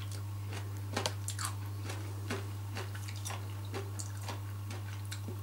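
A person chewing a mouthful of pork knuckle with irregular soft wet clicks and smacks, over a steady low hum.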